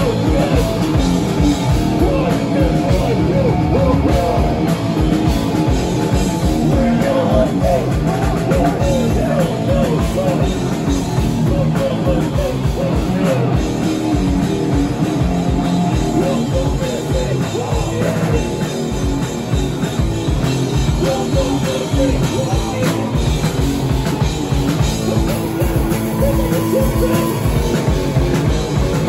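Live punk rock band playing: electric guitar, bass guitar and drum kit, with a singer's vocals over them.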